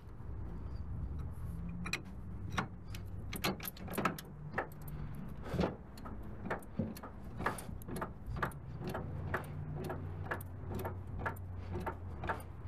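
Irregular metallic clicks and clanks, roughly one or two a second, from work on a car-hauling trailer's hardware, over a low hum that comes and goes.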